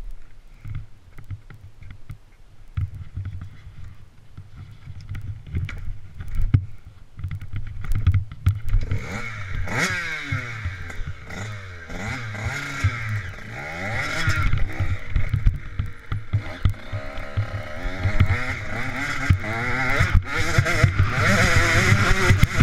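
Dirt bike engine being ridden, low and uneven for the first few seconds with scattered knocks. From about a third of the way in it revs up and down again and again as the bike pulls away, then runs louder and steadier near the end.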